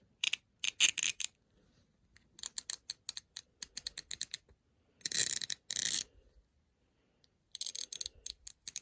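GearWrench 120XP fine-tooth swivel-head ratchet worked back and forth by hand, its pawls clicking in quick runs of sharp ticks, several strokes with short pauses between. The click is uneven, which the owner puts down to the pawls alternating.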